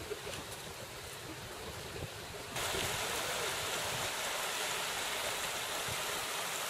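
Steady rush of a shallow, rocky river flowing, stepping up louder about two and a half seconds in.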